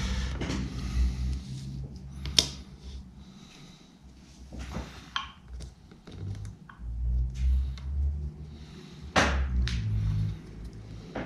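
Fingers working the small plastic parts of a Revox B77 toggle switch: scattered soft clicks and rubbing, with a few sharper clicks standing out.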